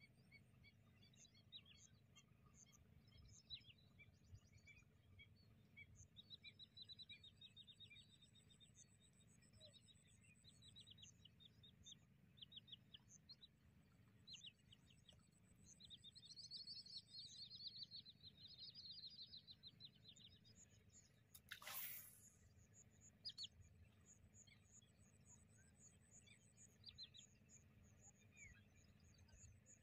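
Faint birdsong: many small birds chirping and trilling, over a low steady background rumble, with a thin high steady tone coming and going. A brief whoosh, a little after two-thirds of the way through, is the loudest sound.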